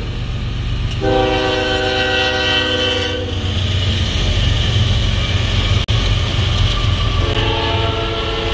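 Freight train locomotive's air horn sounding two long blasts, the first about a second in and lasting about two seconds, the second starting near the end, over the steady low rumble of the train passing through the crossing.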